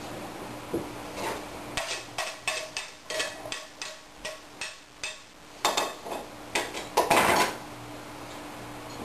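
Kitchen food-preparation clatter: a run of sharp knocks and clinks of utensils and dishes, about three a second, then a few louder clatters near the end.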